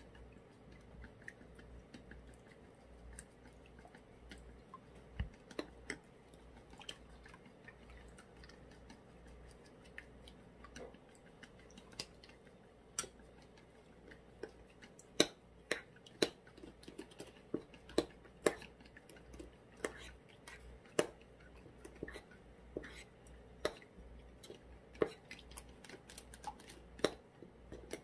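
Irregular sharp clicks and taps of kitchen work, sparse at first and coming every half second or so in the second half, over a faint low hum.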